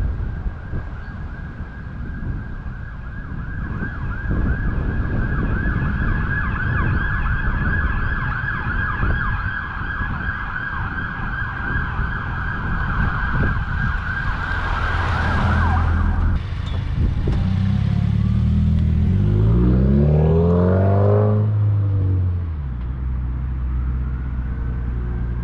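Subaru WRX's turbocharged flat-four (boxer) engine through an aftermarket ETS cat-back exhaust in a drive-by: the car rushes past, then accelerates with the engine note climbing in pitch for a few seconds, the loudest part, before easing off. Earlier, a steady high-pitched whine runs under wind noise and cuts off suddenly about two-thirds of the way in.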